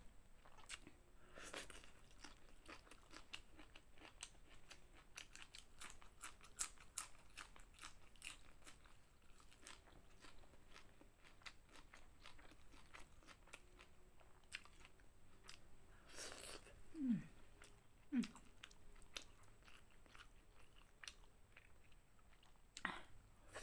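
Close-mouthed chewing and crunching of raw vegetables and rice eaten by hand, with many small wet clicks throughout and a louder crunch about two thirds of the way in. Two short falling hums follow soon after.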